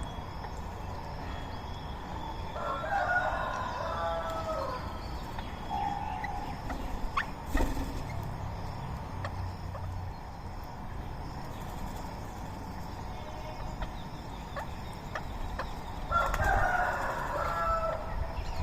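A rooster crowing twice, each crow about two seconds long, once about three seconds in and again near the end.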